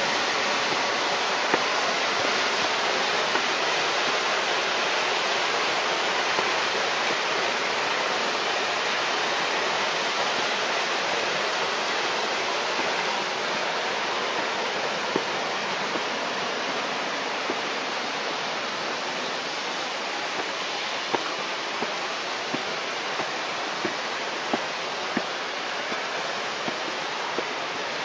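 Steady rushing of water from the dam and river, a dense even hiss that gets a little quieter toward the end. Scattered light footsteps on concrete steps tick through it, more often in the second half.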